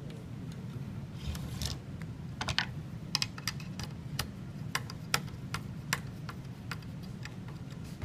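Irregular light clicks and taps of a screwdriver and wires against a steel electrical box being wired up, over a steady low hum.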